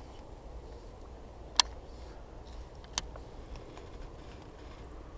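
Two sharp clicks from the angler's rod and baitcasting reel, the louder one about a second and a half in and a softer one about three seconds in. Faint light ticking follows, over low steady background noise.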